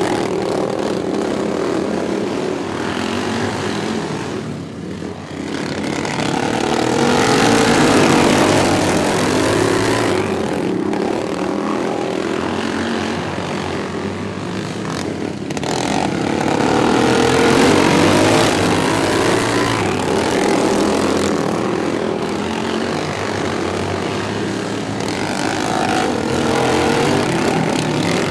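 A pack of racing lawn mowers running flat out, their engines rising and falling as they pass, loudest about eight seconds in and again near eighteen seconds.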